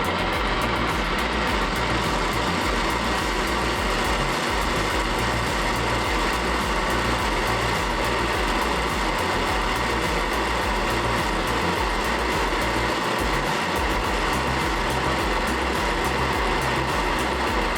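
Dillon oxy-acetylene gas torch flame hissing steadily while fusion-welding steel.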